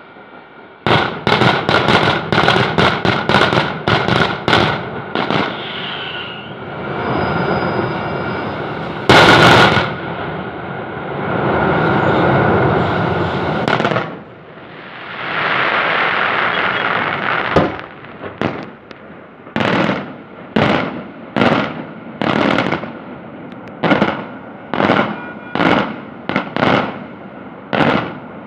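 Daytime fireworks salute with coloured smoke: a rapid volley of loud bangs, one heavy blast about nine seconds in, two stretches of steady rushing noise, then single bangs about once a second near the end.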